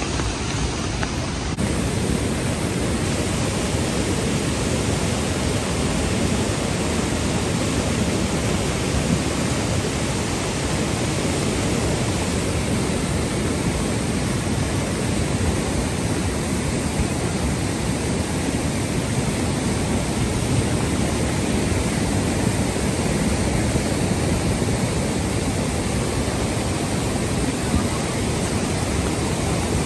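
River in flood: a torrent of muddy floodwater carrying stones and debris, heard as a loud, steady rushing noise that does not let up.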